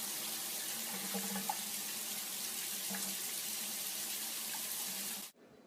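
Steady rush of running water, like a tap left on, cutting off suddenly near the end.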